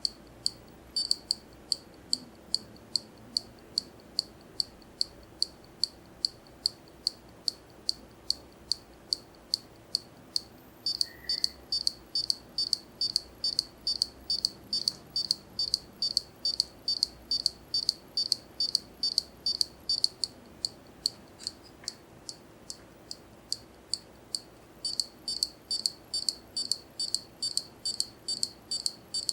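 Failing hard disk drive clicking over and over at an even rate, about two clicks a second and faster in stretches, over a faint steady hum: the repetitive clicking of a defective drive.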